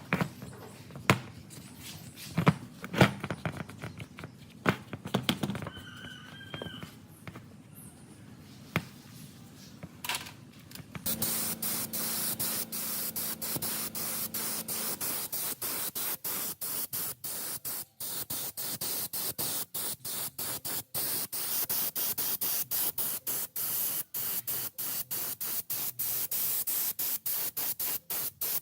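Scattered sharp knocks and clicks with a short squeak, then about eleven seconds in a loud, steady spraying hiss that runs on, broken by many brief gaps, as from a pressurised spray at work on the parts.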